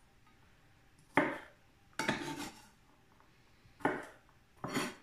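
Kitchen knife cutting garlic into chunks: four separate knocks as the blade comes down.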